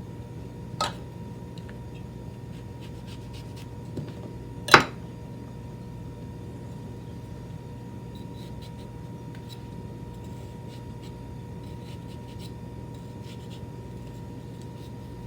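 Paring knife cutting and scraping through a vegetable, with small scattered clicks and two sharp knocks on the board, the second and louder about five seconds in, over a steady low hum.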